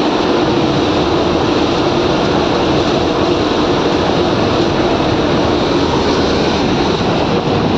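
Steady engine and road noise of an intercity coach running at highway speed, heard from inside the driver's cab.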